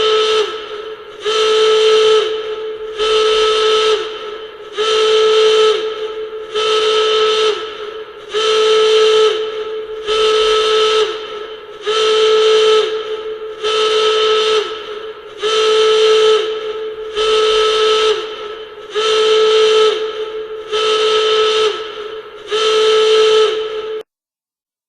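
Klaxon alarm horn sounding in repeated loud blasts, about one every second and three-quarters. Each blast is a steady, buzzy tone that sags slightly in pitch as it ends, and the sequence cuts off abruptly near the end.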